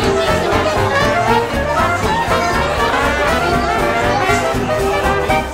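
Background music in a jazz style, led by brass instruments, playing steadily.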